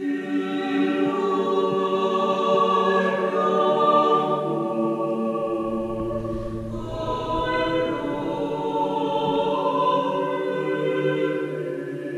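A cappella choir singing slow chant in long held chords, moving to a new chord about halfway through.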